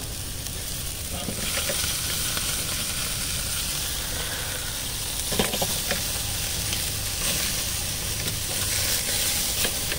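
Lamb chops sizzling on the grate of a Weber kettle grill: a steady hiss, with a couple of sharp clicks about five and a half seconds in.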